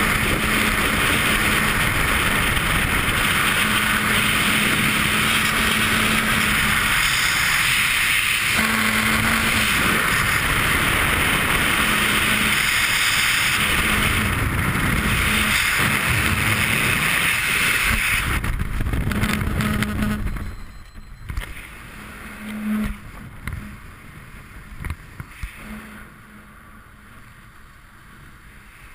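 Freefall wind rushing over a head-mounted camera's microphone, loud and steady. About twenty seconds in it drops away abruptly as the parachute opens, leaving much quieter wind with a few short flaps and rustles.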